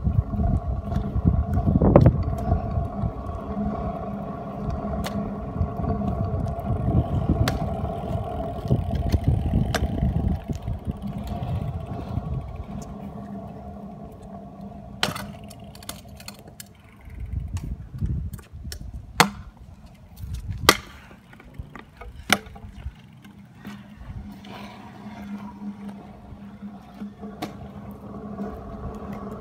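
Scooter wheels rolling over rough asphalt: a steady rumble with a faint hum under it, louder for the first dozen seconds. After that it is quieter, with several sharp clacks.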